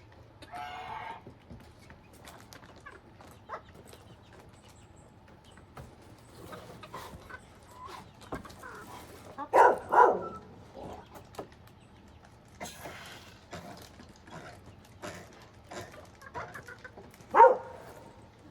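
Short animal calls: one just after the start, two louder ones about ten seconds in and another near the end, among scattered knocks and rustling.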